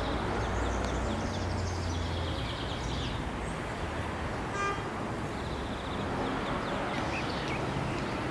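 Open-air railway station ambience: a steady low rumble with birds chirping. About halfway through there is one brief, high whistle toot.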